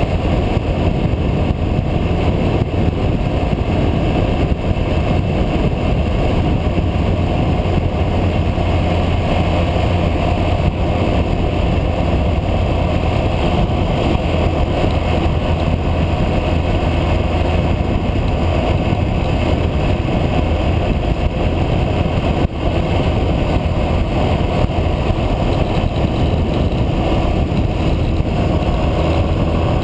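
Motorcycle cruising at a steady speed, its engine drone mixed with a constant rush of wind on the microphone.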